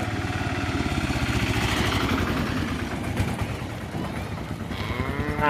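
An engine runs steadily with a fast, even pulse. Near the end a buffalo starts a loud, drawn-out moo that bends in pitch.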